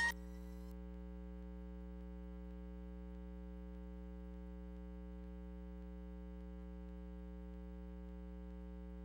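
Steady electrical hum: a low tone with a stack of fainter higher tones above it, unchanging throughout, with no sound of the game itself.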